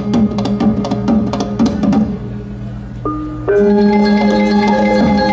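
Balinese gong kebyar gamelan playing: quick, sharp strokes over a low ringing hum. After a quieter stretch the bronze metallophones come in loudly together about three and a half seconds in, with many ringing tones.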